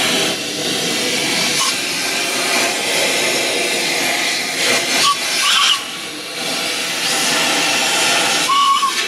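Compressed-air blow gun hissing steadily as it blows out the head bolt holes of a tractor engine block, with a few short breaks.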